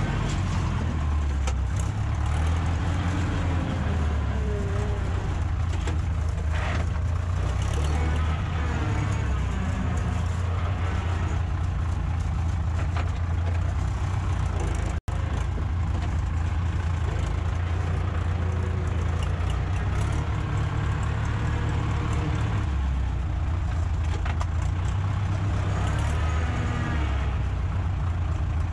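Ursus tractor's diesel engine running steadily under load while pulling a tillage implement through a field. The sound cuts out for an instant about halfway.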